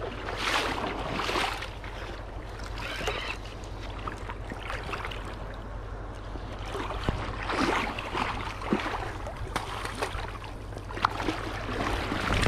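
Shallow river water splashing and sloshing at the bank in a series of short swishes, over a steady low rumble.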